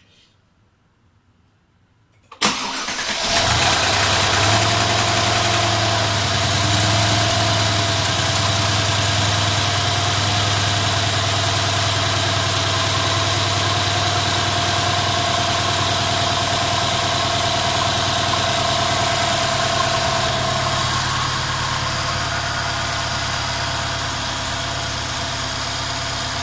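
Mercedes-Benz twin-turbo V8 cranking and catching about two seconds in, then idling. A steady whine sits over the idle and stops about eighteen seconds after start-up as the idle eases down. This is the noisy startup sound the owner puts down to the right-side turbo, possibly a wastegate rattle.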